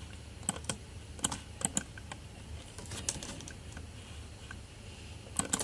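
Faint, irregular clicks of computer keyboard keys being tapped, a few at a time with short pauses between.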